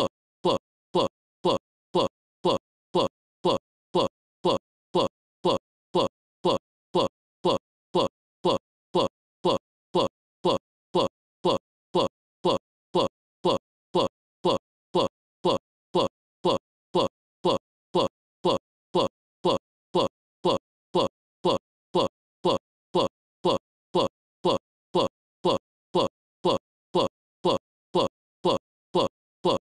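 One short blip looped over and over at a perfectly even rate, about three every two seconds, with silence between each.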